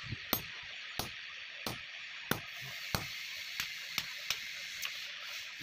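Hand hammer blows on a hot punch and red-hot pickaxe steel on an anvil: about ten sharp metallic strikes, a little under two a second, some lighter than others, over a steady hiss.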